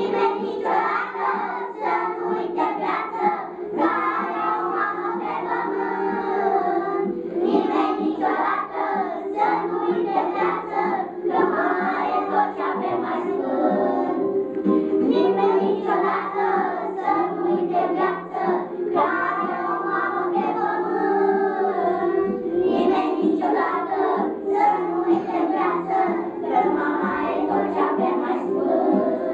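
A group of young children singing a song together over a steady musical accompaniment.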